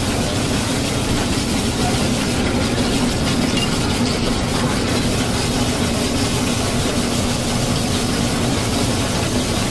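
Electric ice-shaving machine running steadily, its blade shaving a block of ice into snow-like flakes: an even hum with a dense grinding noise over it.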